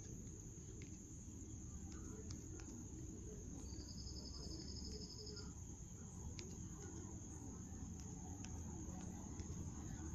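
Faint background ambience with a steady high-pitched hiss or whine and a low hum. About four seconds in, a rapid insect-like trill sounds for about two seconds. A few faint clicks are scattered through it.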